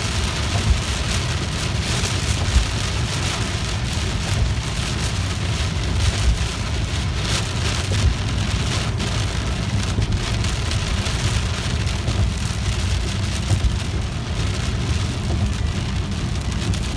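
Heavy rain pattering steadily on a car's roof and windshield, heard from inside the moving car, over a constant low road rumble.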